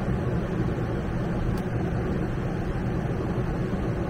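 RV rooftop air conditioner running in cool mode with its fan on high: a steady blowing hum, a bit noisy.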